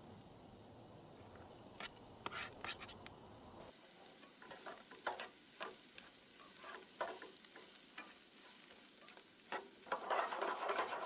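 Chopped onions being scattered into a pan of tater tots: scattered light taps and rustles, with a denser patch of pattering near the end.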